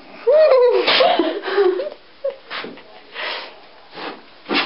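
A girl imitating a horse's whinny with her voice: a wavering, pitch-bending call over about the first two seconds, followed by short rustling sounds.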